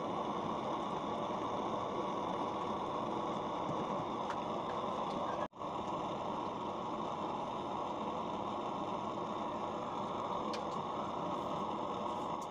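Steady rushing noise of a pot of soup cooking on a lit gas burner, even in level throughout, breaking off for an instant about five and a half seconds in.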